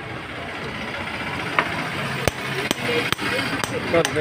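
A hammer strikes metal parts of a Changfa R190 single-cylinder diesel engine under repair. It lands about six sharp metallic knocks, starting about a second and a half in, roughly two a second and unevenly spaced.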